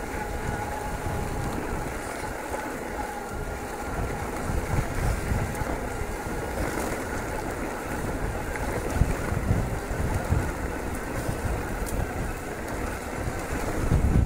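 Wind buffeting the microphone of a bike-riding action camera, over the rumble and rattle of an electric mountain bike's tyres rolling on a gravel track. The low buffeting swells in gusts a few times.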